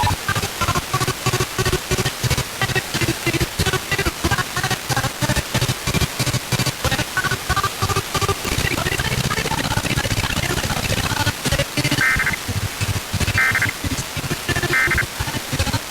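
Broadcast FM radio music from several stations heard at once, with a regular drum beat through the first half. From about twelve seconds in come three short, equal bursts of Emergency Alert System digital data tones about a second and a half apart, the pattern of the EAS end-of-message code closing the test.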